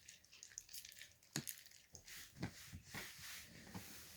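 Lotion-softened slime being squeezed and stretched by hand: faint wet squishing with small crackling clicks.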